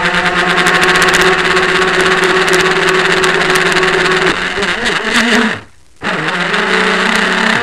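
Radio-controlled powerboat's motor running flat out, heard close up from a camera mounted on the hull, with crackly slapping from the water under the hull. The pitch shifts about two-thirds of the way in, the sound drops away sharply for under half a second, then the motor runs on at a new pitch.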